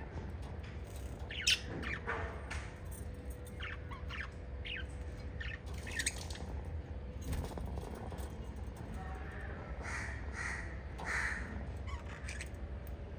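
Small pet parrots chirping and squawking in short, scattered calls, the loudest about a second and a half in, over a steady low hum.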